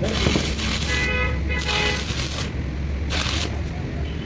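A motor's steady low rumble, with a short high-pitched toot about a second in.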